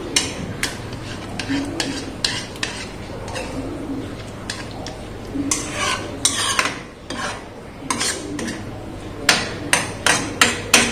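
Flat metal spatula stirring thick chicken curry in a metal kadai, scraping and clinking against the pan in short, irregular strokes that come thicker near the end.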